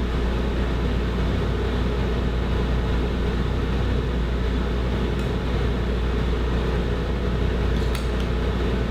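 Steady machine hum and hiss of a kitchen ventilation fan running, with a few light clicks about five and eight seconds in.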